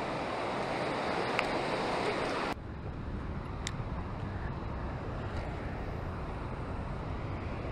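Rushing river rapids: a steady hiss of white water that cuts off suddenly about two and a half seconds in, giving way to a quieter low rumble of flowing water and wind on the microphone, with a few faint ticks.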